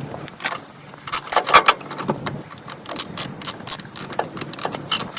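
Ratchet wrench clicking in quick bursts as a car battery terminal clamp is tightened.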